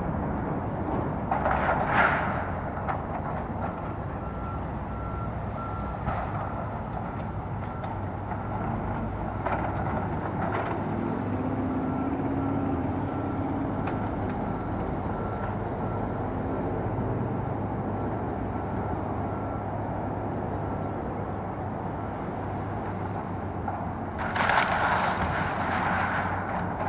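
Komatsu excavator demolishing a wood-frame house: the diesel engine runs steadily while a backup alarm beeps at an even pace for much of the time. Debris crashes about two seconds in and again loudly near the end as the machine tears into the structure.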